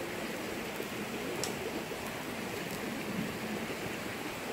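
Steady rushing of a nearby forest stream, with a few faint clicks and rustles from vine being wound and pulled tight around a wooden crossbeam.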